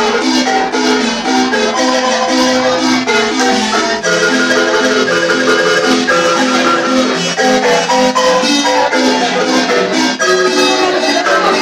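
Marimba played with mallets by two players at one instrument: a lively run of quick, struck wooden-bar notes, a higher melody over a rhythmic lower accompaniment.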